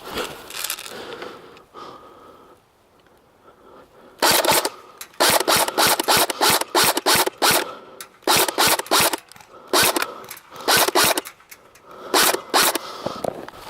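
Rapid rustling and scraping strokes, about four a second in short runs, from a player moving fast through dry brush, with clothing and gear rubbing close to the microphone. It is quiet for the first few seconds, and the strokes start about four seconds in.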